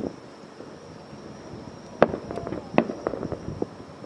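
Aerial fireworks bursting: a quiet lull, then a sharp bang about halfway through followed by a run of crackling pops and another strong report.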